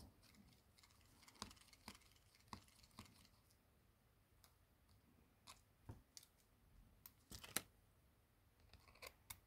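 Faint, scattered small clicks, a dozen or so, of a small screwdriver working the screws inside an opened smartphone.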